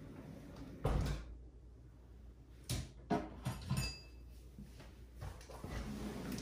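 Several sharp knocks and clatters, the last with a brief ring, then the low rumble of an office chair's casters rolling on a wooden floor.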